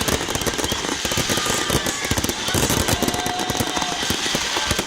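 Fireworks going off in a dense, continuous barrage of rapid crackling pops and bangs, many per second.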